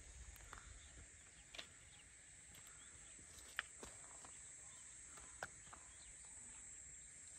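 Near silence: faint open-air forest ambience with a steady high hiss and a few brief, faint chirps or ticks scattered through it.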